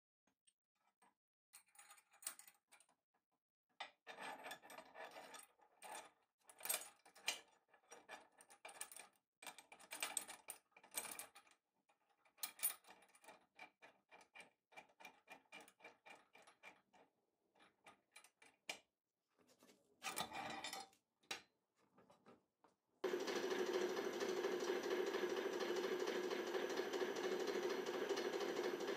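Steel shackles and a connecting rod clinking and clattering as they are handled and fitted into a hydraulic press's pulling rig. Near the end the press's hydraulic pump motor starts abruptly and runs steadily.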